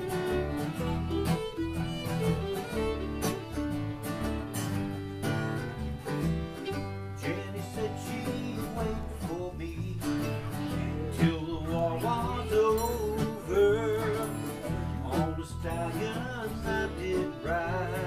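Bluegrass string band playing an instrumental passage, with fiddle, mandolin and guitars together over a moving low bass line. The lead line wavers with vibrato in the second half.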